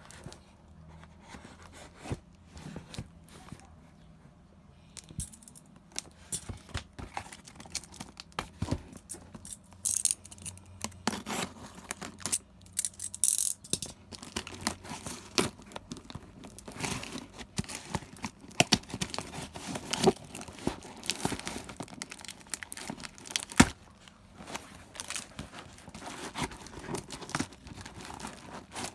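Packaging being unboxed by hand: tearing and crinkling of wrapping, with scattered clicks and taps as items are handled. The rustling gets busier about ten seconds in.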